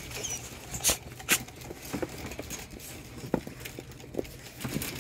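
Scattered light clicks, knocks and rustles of puppies scrambling in straw against a chain-link fence, with two sharper clicks about a second in.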